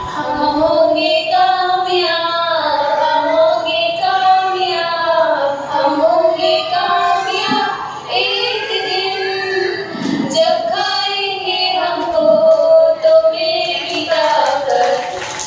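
Children singing a song, with music behind them.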